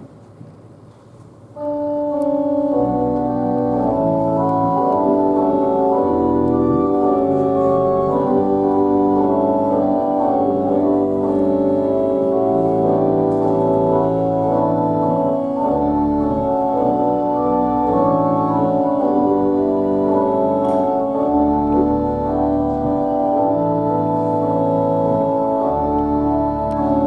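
Organ playing offertory music: slow, held chords over long sustained bass notes, starting about a second and a half in.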